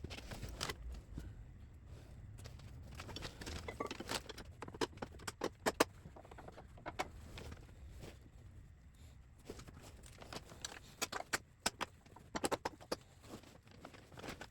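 Metal hardware being handled: scattered light clicks, clinks and knocks of bolts and a steel crash-bar bracket, coming in small clusters.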